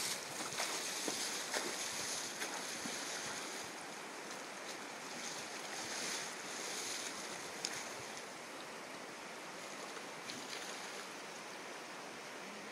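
Steady rush of a fast-flowing river current, an even wash of water noise.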